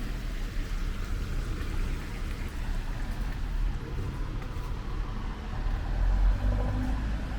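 A motor vehicle passing on a wet road, its low rumble swelling to its loudest about six seconds in, over a steady hiss.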